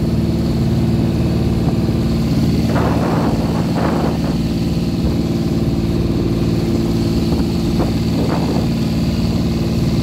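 Motorboat engine running steadily under way. Water rushes and splashes against the hull a few times: around three to four seconds in, and again near eight seconds.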